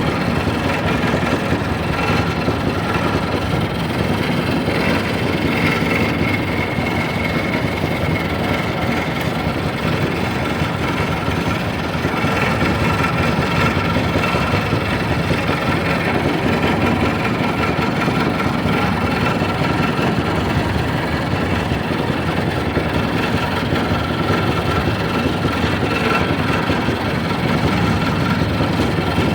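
A motor running steadily, with a faint whine over an even hum.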